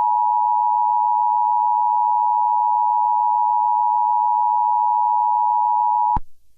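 Emergency Alert System attention signal: a steady two-tone alarm held unchanged, cutting off abruptly about six seconds in.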